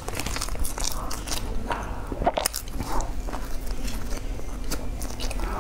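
Close-miked chewing and mouth sounds of a person eating soft bread, a run of short wet smacks and clicks.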